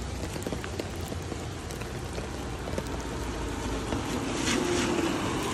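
Steady rain falling and water running, an even hiss over a low rumble that swells louder briefly about four and a half seconds in.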